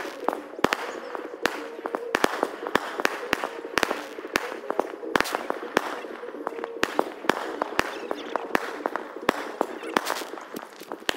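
Aerial fireworks going off: many sharp, irregular pops and bangs, several a second, with no let-up.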